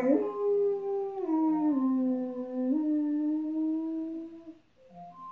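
German Shepherd howling once, a single long howl of about four and a half seconds that sinks in pitch, then lifts again about halfway through and holds until it fades out. A marimba-like alarm clock melody plays behind it and comes back clearly near the end.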